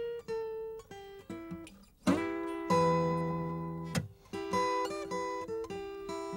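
Acoustic guitar played in E minor: picked single notes with a bent note, and two full strummed chords about two and four seconds in.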